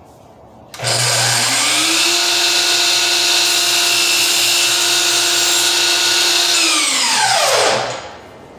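Miter saw cutting crown molding at a 22.5-degree setting. The motor spins up about a second in, runs at a steady whine for about six seconds, then winds down with a falling pitch near the end.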